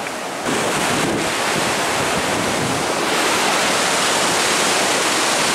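Floodwater of a monsoon-swollen river rushing, a steady noise that steps up in loudness about half a second in and again around three seconds in.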